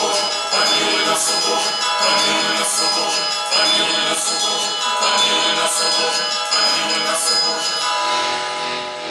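Bells ringing in the music, with a new strike about every second and a half over a bed of steady ringing tones, dying away near the end.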